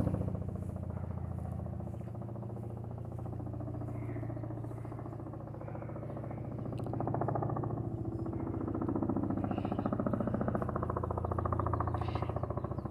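Boeing CH-47F Chinook tandem-rotor helicopter flying overhead. Its rotor blades beat in rapid, even pulses over a steady low engine drone, growing louder about halfway through as it comes closer.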